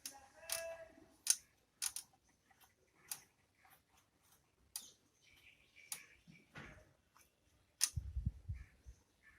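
Irregular light clicks and ticks from handling a vintage tube radio and turning its tuning knob to run the dial pointer on the new dial string, with a brief squeak about half a second in and a low thump near the end.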